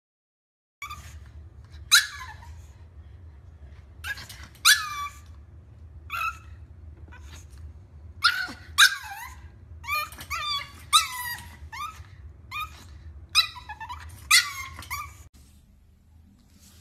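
Pug puppy barking: a long string of short, high yips, many falling in pitch, coming in irregular clusters.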